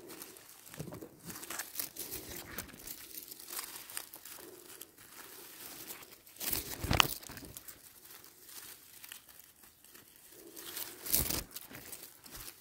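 Rustling and crackling of forest-floor moss, leaves and twigs being trodden and handled while mushrooms are picked. Louder crackles come about halfway through and again near the end.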